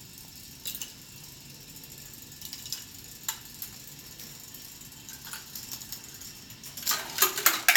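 Balls rolling and clicking along the plastic tracks of a large K'nex ball machine, with scattered clicks and a quick run of louder clacks near the end.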